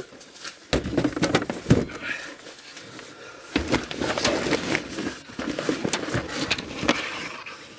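Boxes and a computer tower being loaded into a car boot: scattered knocks, bumps and rustling of cardboard and packing.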